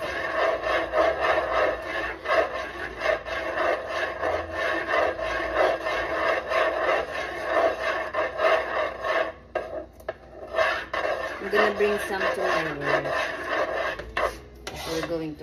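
A spoon scraping round the bottom of a pan in quick, repeated strokes as thick maja blanca mixture is stirred while it cooks. The strokes break off briefly twice about ten seconds in.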